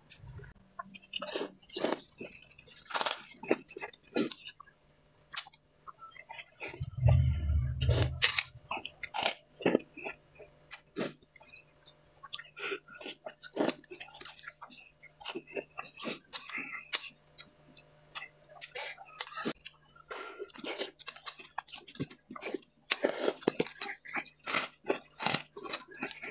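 Close-up chewing and biting of crunchy food, with irregular crisp crunches throughout. A short low rumble or thump comes about seven seconds in.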